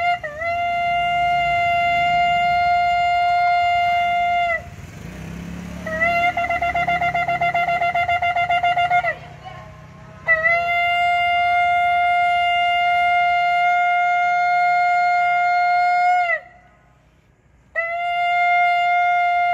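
Shofar blown in long blasts on one steady note. After a couple of short notes at the start comes a long blast; after a breath, a rapidly wavering, trembling blast; then another long blast that sags in pitch as it cuts off; and after a short pause a fourth long blast begins near the end.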